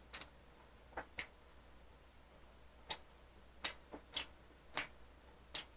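Faint eating sounds: about nine short, sharp clicks and smacks at uneven intervals as a man chews his food.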